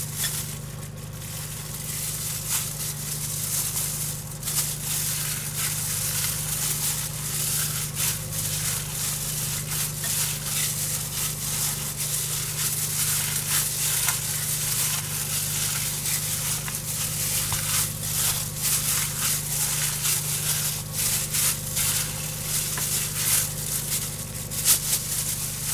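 Thin plastic disposable glove crinkling and rustling as a gloved hand kneads raw ground pork meatball mixture in a glass bowl, a dense, continuous run of small crackles.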